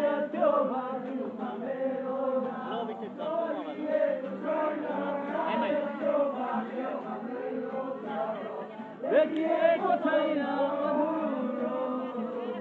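A group of people singing a song together, many voices overlapping, swelling louder about nine seconds in.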